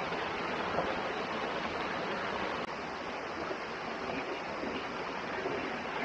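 Mountain stream rushing over rocks in a steady, even roar, running high with water after rain.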